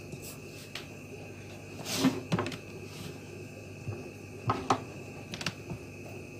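Handling knocks and clicks of a digital multimeter and its test leads on a cutting mat: a cluster of knocks about two seconds in as the meter is set down, then a few sharper clicks of the probes and alligator clip between about four and a half and five and a half seconds in.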